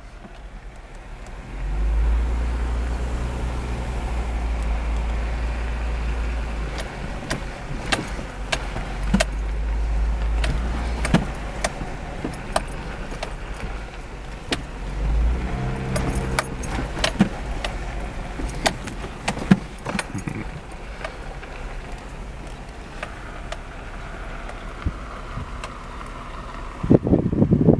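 A Jeep driving slowly over a bumpy gravel track, heard from inside the cab: a low engine rumble with scattered sharp clicks and rattles through the middle.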